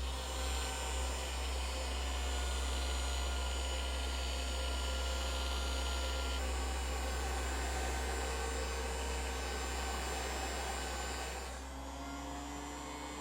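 Electric heat gun blowing hot air steadily, softening the adhesive tape that holds the battery; its high hiss drops away near the end, leaving a lower hum.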